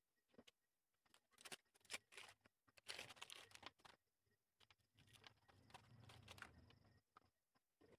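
Faint rustling and scattered clicks from someone moving and handling things right next to the recording phone, densest between about two and four seconds in, then a low rumbling rustle until about seven seconds in.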